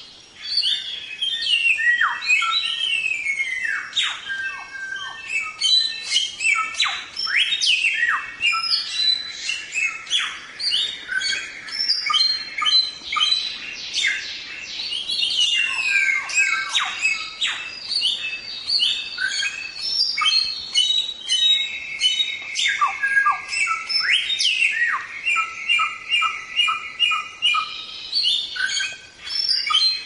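Samyong (golden whistler) singing energetically: a dense, unbroken run of clear whistles, steep downward-sweeping notes and quick chattering trills. About two-thirds of the way through comes a stretch of rapid repeated notes.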